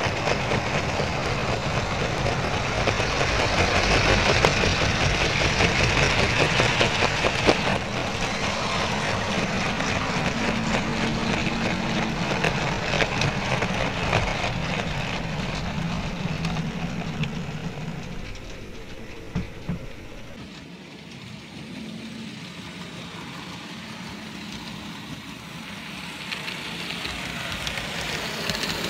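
Model railway train running on its track, heard from a miniature camera riding aboard: a steady rattle and rumble of wheels on rail, with many small clicks. It dies down about twenty seconds in and builds again near the end as a train of goods wagons passes close by.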